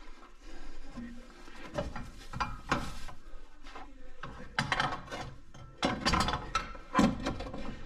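Irregular metallic clanks and rattles as a compressed coil spring and a tubular lower control arm are worked into place by hand. The loudest clank comes near the end.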